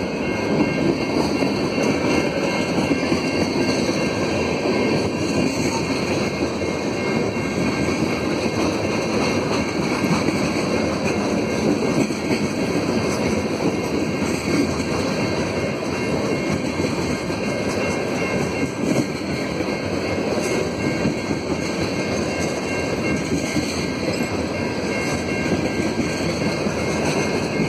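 Freight train's tank cars rolling past at close range: a steady rumble of steel wheels on the rails, with some clickety-clack.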